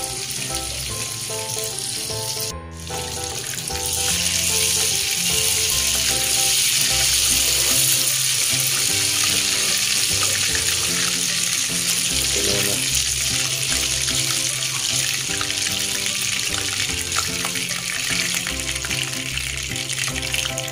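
Butter sizzling and bubbling as it melts and foams in a hot nonstick pan, growing louder after a brief dip about two and a half seconds in. Background music plays along.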